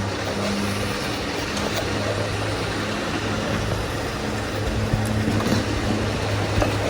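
Steady low rumble of road traffic on the bridge overhead, with an even rushing noise underneath.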